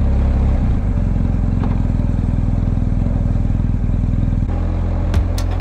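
Motorcycle engine running steadily under way; its note changes about a second in and again after about four and a half seconds.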